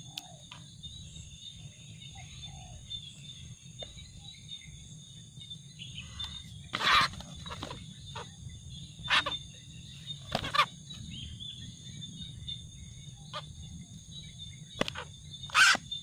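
A snared yellow-vented bulbul calling in short bursts while held in the hand, about eight calls, the loudest about halfway and near the end, over a steady high insect chorus.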